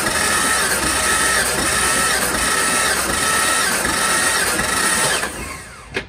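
A 1990 Jeep Comanche's straight-six being cranked over by the starter motor without firing, its fuel pump relay and coil pulled for a compression test of cylinder 2. The steady cranking stops about five seconds in.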